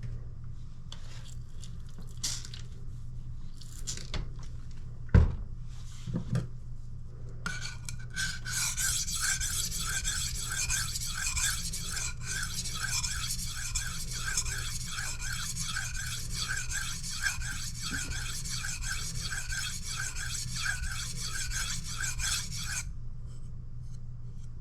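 Coolina kitchen knife blade being sharpened on a whetstone: steady back-and-forth scraping strokes, about two a second, starting about seven seconds in and stopping near the end. Before that, a few light knocks and one sharp thump about five seconds in.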